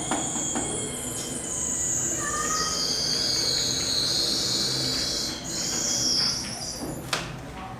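A sustained high-pitched metallic screech on a building site, wavering in pitch and lasting about six seconds, with sharp hammer-like knocks at the start and again near the end.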